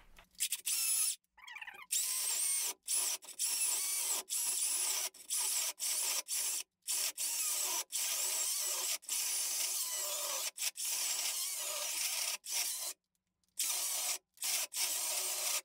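Makita 36V cordless chainsaw ripping along the grain of a dry apple log: the electric motor and chain tearing through the wood, cutting in and out again and again. Right after, the user puts this down to battery overload.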